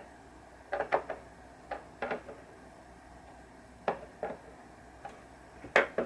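Scattered light clicks and taps of small metal hardware and tools being handled on the pinball playfield, about half a dozen over several seconds, a couple in quick pairs.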